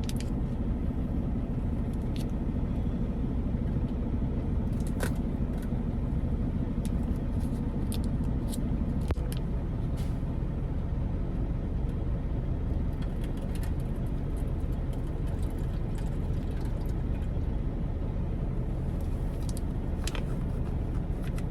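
Semi-truck's diesel engine idling, a steady low hum heard inside the cab, with scattered light clicks and taps over it.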